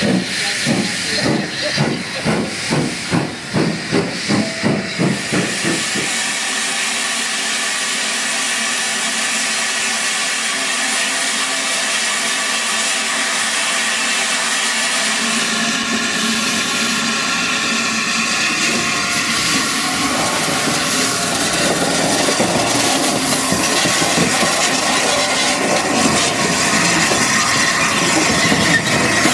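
A BR Standard Class 5 steam locomotive pulling away, its exhaust chuffing about two and a half times a second over the hiss of steam from its cylinders. After about six seconds this gives way to a steady loud hiss of steam from the A1 Pacific locomotive Tornado.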